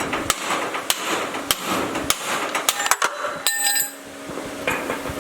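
Hammer striking a chisel, metal on metal, driving the old cut bushing sleeve out of a leaf spring eye, about one blow every half second. A ringing metallic clatter comes about three and a half seconds in.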